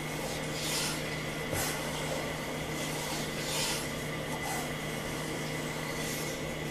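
Iron shoulder plane shaving wood as it is pushed along a rabbet in a board, a rasping hiss that swells with each cutting pass, several passes in a row.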